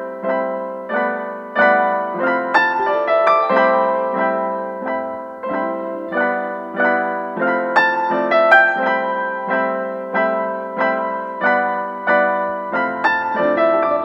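Background piano music: a gentle melody of evenly paced notes, each struck and then fading.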